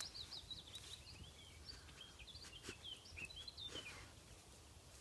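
Faint birdsong: a small bird singing a run of short, high warbling chirps that stops about four seconds in. Under it runs a low wind rumble, and there are a few brief rustles as a dog pushes its nose into long grass.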